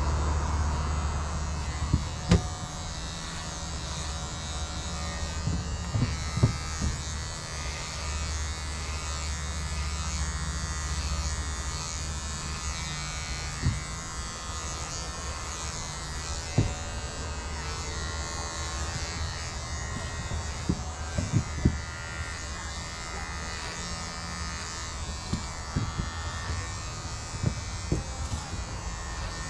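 Electric hair clippers running with a steady buzz during a haircut, with scattered sharp clicks now and then.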